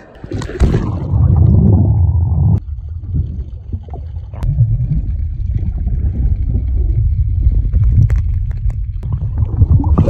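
Sea water churning around the diver's phone as he ducks under, then the low, muffled rumble and gurgle of the sea heard through the submerged microphone, with scattered faint clicks. The splashy sound cuts off sharply about two and a half seconds in, when the microphone goes fully under.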